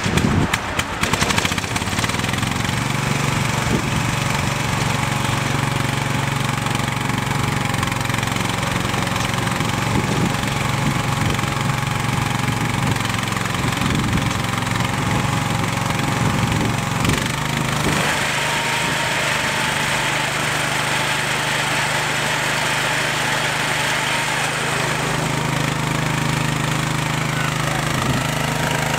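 Case 444 garden tractor's engine just after starting, settling into steady running. About two thirds of the way through, the running note changes and turns brighter and hissier.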